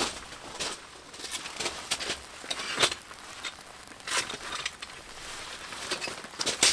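Footsteps crunching on gravel, then the rustle and clicks of a folding camp chair's frame and fabric being pulled open. The sounds come as scattered, irregular crunches and knocks.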